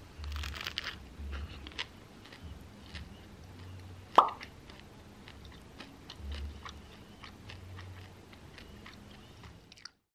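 A flaky chocolate-topped pastry being torn apart by hand and eaten: crust crackling and rustling in scattered small clicks, with one sharp, louder crackle about four seconds in.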